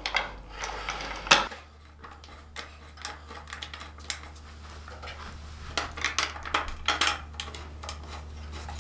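Light clicks and clinks of steel bolts with top hat washers being pushed through a plastic fender plate and started by hand. One sharper click about one and a half seconds in, and a quick run of clicks a little past the middle.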